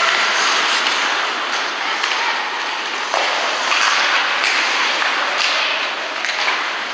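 Ice hockey play in a rink: skate blades scraping the ice with sticks and puck clacking, and a sharp hit about three seconds in.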